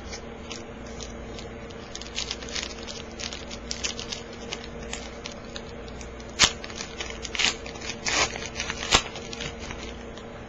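Foil trading-card pack being torn open and its cards handled: crinkling wrapper and cards sliding and tapping, with two sharper clicks, about six and a half and nine seconds in, over a steady low hum.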